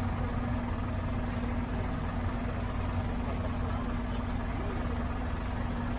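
Scania tow truck's diesel engine idling steadily, a low even rumble with a held hum.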